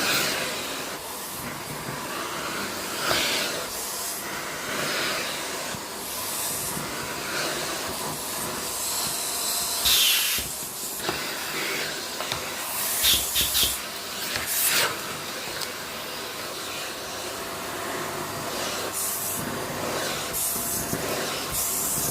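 Vacuum cleaner running steadily with a tool attachment. The suction hiss surges briefly every few seconds as the nozzle moves over the surface.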